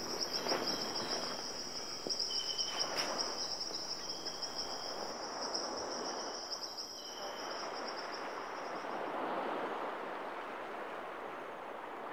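Crickets trilling at a high pitch in a steady pulsing chorus, with a second, lower chirp coming and going. Two faint knocks sound about half a second and three seconds in. The chorus fades out about nine seconds in, leaving a soft rushing wash of noise.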